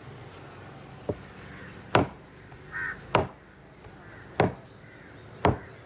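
Heavy knife chopping through a bronze bream into a wooden table: five sharp chops roughly a second apart, the first lighter. A short bird call sounds once between the chops.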